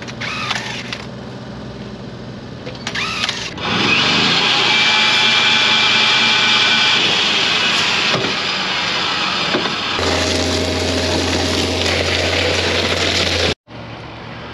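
Jobsite machinery in a run of short cuts: a loud steady machine whine for several seconds, then a deeper steady hum that cuts off abruptly near the end. The whining stretch fits the electric rebar bender being worked to bend bar.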